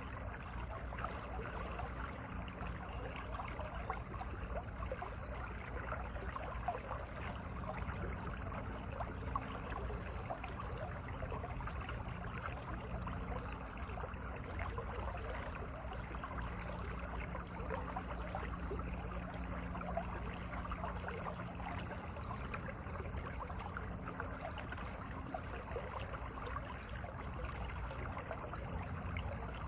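Mountain valley stream flowing steadily over rocks, a continuous even rush of water.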